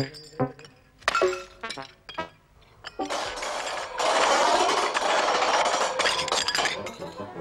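Porcelain teacups and saucers clinking in a few separate knocks, then from about three seconds in a dense, continuous clatter of crockery that gets louder about a second later and eases off near the end.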